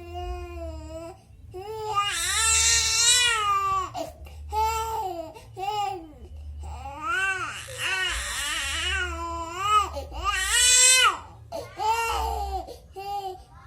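Baby crying in a run of high wails, loudest from about two to four seconds in and again from about seven to eleven seconds in, with short breaks for breath between them.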